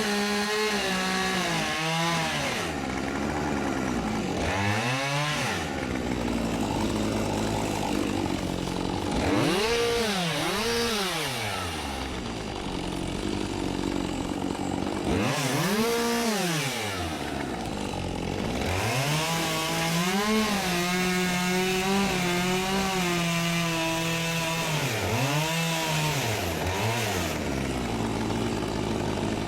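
Chainsaw engine revved up and down over and over, with some stretches held at high revs, while cutting wood.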